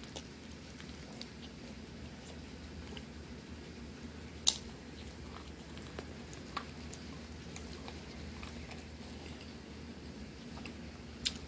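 Chewing and mouth sounds of someone eating soft chicken salad by hand, with fingers squishing through the salad in a plastic tub. Small scattered clicks, with two sharp clicks, one about four seconds in and one near the end, over a steady low hum.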